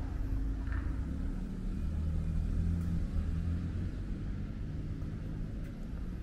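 Low rumble of a motor vehicle's engine running close by, with a steady hum that shifts slightly in pitch.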